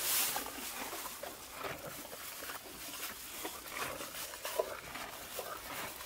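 Miniature horse eating leaves from a feeder: irregular soft crunching and clicking of chewing, with a short rush of noise at the very start.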